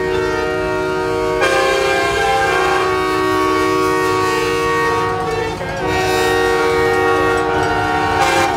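Several semi-truck air horns sounding together in long, overlapping held notes, with horns joining and dropping out along the way.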